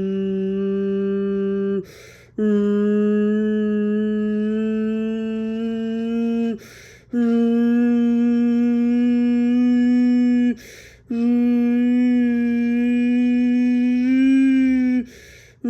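Chrysler air raid siren, driven by a Hemi V8 engine, sounding the steady Alert signal: one loud, held tone of almost constant pitch that creeps slightly upward. The tone breaks off for about half a second three times, roughly every four seconds, each break filled with a short hiss.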